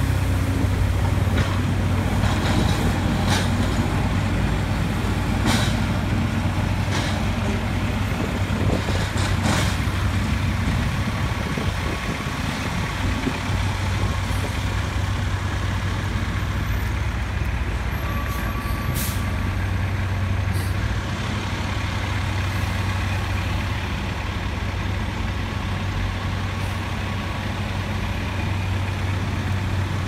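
Heavy diesel dump truck engine running steadily at low speed as the truck rolls slowly past close by. Several sharp knocks come in the first ten seconds, and there is a short air-brake hiss about two-thirds of the way through.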